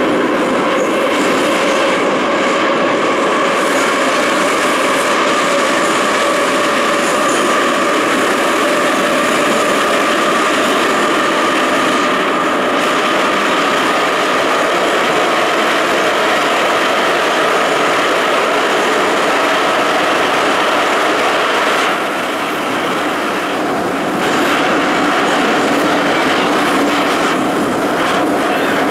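Ezh3 metro train running at speed through a tunnel, heard from inside the car: a loud, steady running noise with a whine that rises slightly in pitch over the first ten seconds or so, then holds. The noise eases briefly about 22 seconds in.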